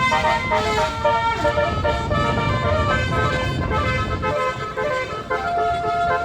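Indonesian tour-bus basuri ("telolet") musical horns playing a tune of held notes that step from pitch to pitch, with a long steady note in the second half. A low vehicle rumble runs beneath.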